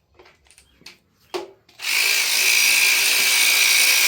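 A few light metal clinks, then a cordless power drill/driver runs steadily from about two seconds in, spinning out a bolt on the engine.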